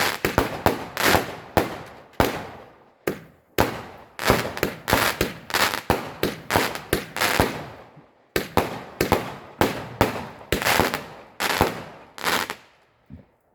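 Fireworks going off: a rapid, irregular run of sharp bangs, several a second, each with a short echoing tail, stopping about a second before the end.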